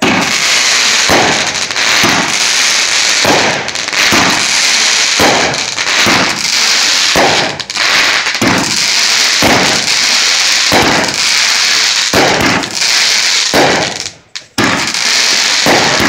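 A 16-shot, 200 gram consumer firework cake firing: a rapid series of sharp launch bangs and aerial bursts about every half-second to second, over a continuous hiss. There is a brief lull about 14 seconds in, then it fires again.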